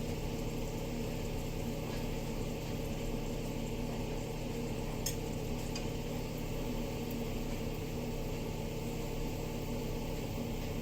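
Steady hum with an even hiss, from the cooking or a kitchen appliance running, with a light click about five seconds in.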